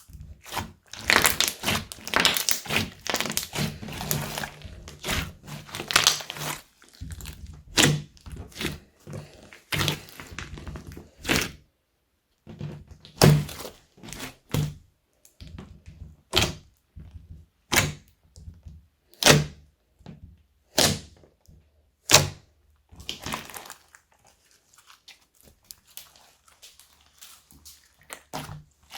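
Slime being squished and pressed by hand: dense crackling and squelching for the first several seconds, then sharp separate pops about every second and a half, fading to faint clicks near the end.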